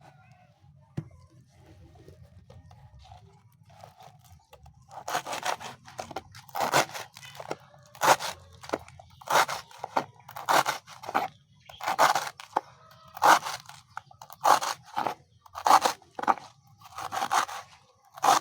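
A blade chopping pieces off a fibrous banana stem by hand: a crisp crunching cut about every second and a quarter, starting about five seconds in.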